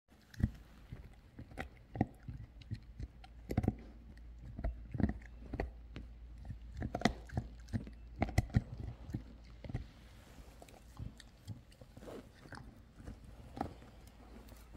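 Yellow Labrador retriever chewing and gnawing a red rubber toy: irregular bites and clicks of teeth on rubber, with short pauses between them.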